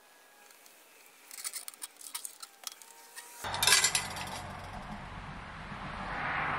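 Small metal drawing tools, a compass and a caliper, clicking and scratching on a steel plate as the compass marks out a circle, with a louder cluster of clinks about three and a half seconds in. A steady hiss follows.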